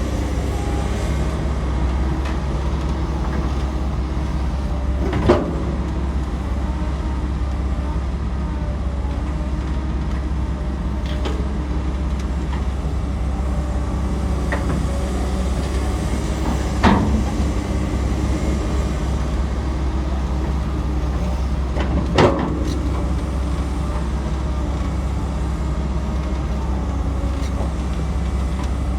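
Excavator's diesel engine running steadily under load, with three sharp metallic knocks spread through, about five, seventeen and twenty-two seconds in.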